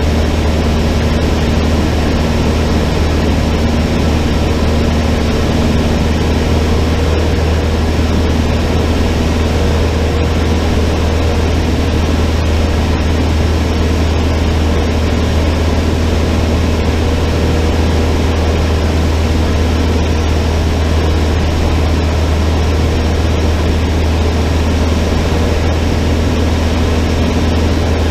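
Cessna 152's four-cylinder Lycoming O-235 engine and propeller running steadily: a loud, constant low drone that holds its pitch throughout.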